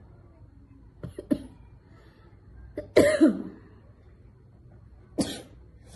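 A person sneezing: two short sharp bursts about a second in, then one loud voiced sneeze about three seconds in, and another sharp burst about five seconds in.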